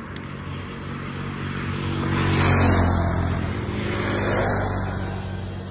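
A motor vehicle's engine passing by on the road, growing louder to a peak a little before halfway and again later, then fading away near the end.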